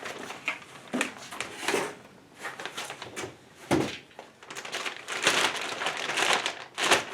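Plastic packaging and cardboard box rustling and crinkling irregularly as parts in a sealed bag are handled, with a couple of sharper crackles.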